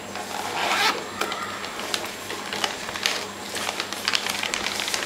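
Zipper on a fabric tripod carry bag being pulled open in several uneven strokes, with rustling of the bag as it is handled.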